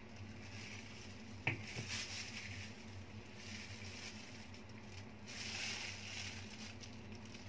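Faint handling sounds as thick mango lassi is poured from a blender jar into a glass, with a single light knock about a second and a half in. Near the end comes a soft rustle as straws are set in the glasses.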